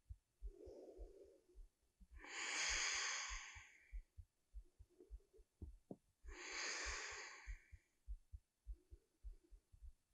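A woman's slow, audible yoga breathing: two long breaths about two and six seconds in, each lasting a second and a half or so, with a softer breath near the start. Faint short low thuds sound underneath throughout.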